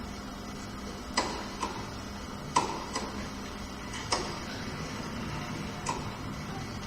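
About six sharp, irregularly spaced knocks and clacks, the loudest about two and a half seconds in, over a steady low hum.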